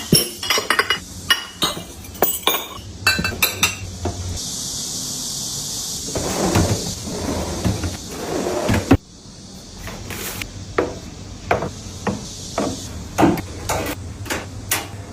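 Kitchenware being handled: a run of sharp clicks, taps and clinks of dishes, glass and containers being set down and moved. A steady hiss runs through the middle, with a rougher rustling stretch that stops abruptly about nine seconds in.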